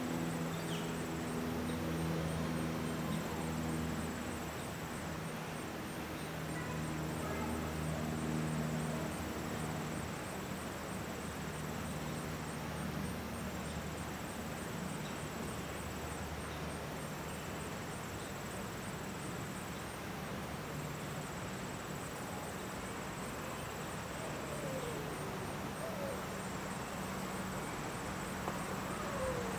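Steady outdoor background hiss, with a low droning hum that fades out about halfway through and a faint high steady tone.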